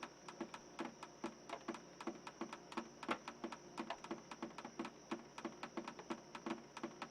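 Background music: the opening of an instrumental track, a quiet, even pattern of clicking, plucked notes at about five a second.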